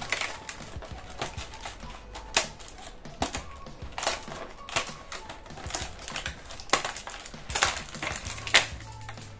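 Packaging of a small cosmetics item crinkling and tearing as it is opened by hand: a run of sharp, irregular crackles and clicks, louder snaps about two and a half seconds in, near the middle and near the end.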